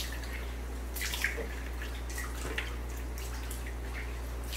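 Water dripping and trickling from a plastic bowl into a fish tank, with a few small splashes about a second in and again midway, over a steady low hum.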